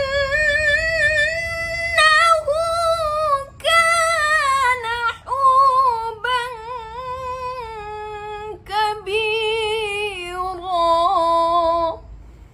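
A woman reciting the Qur'an in the melodic tilawah style: one long, ornamented phrase of held, wavering notes with a few short breaks, its pitch stepping gradually lower until it ends near the end.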